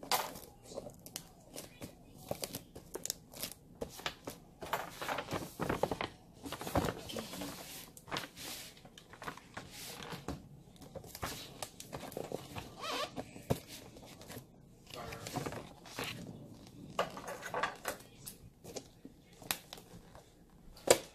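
Gift-bag paper rustling and crinkling as it is folded and pressed around a cardboard box, with irregular taps and clicks; a sharp tap near the end is the loudest.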